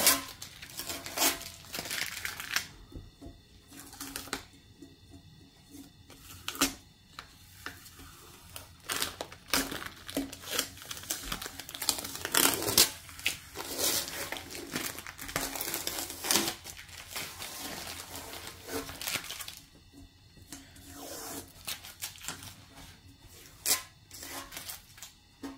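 Blue masking tape being peeled off a painted motorcycle fuel tank and crumpled into a ball: irregular crackling and tearing, with a few short lulls.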